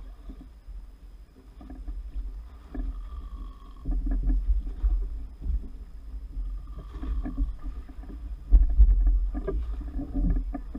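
Uneven low rumble of wind and sea around a small outrigger fishing boat, swelling and easing, with a few scattered knocks and rattles on board.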